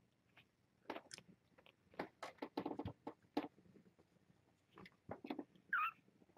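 Soft, irregular wet clicks and smacks of newborn kittens suckling, with a brief high squeak near the end.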